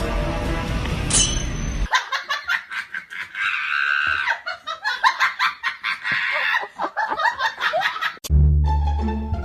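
Background music that cuts off about two seconds in. Several seconds of high-pitched laughter in quick, broken bursts follow. Plucked-string music starts near the end.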